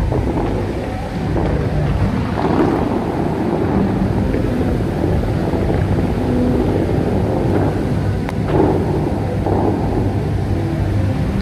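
Dubai Fountain's water jets shooting up and crashing down into the lake in a steady, heavy rushing noise, heard from a boat close by, with wind buffeting the microphone.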